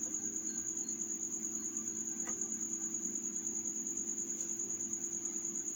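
A cricket trilling steadily, a high, rapidly pulsing note, over a low steady hum.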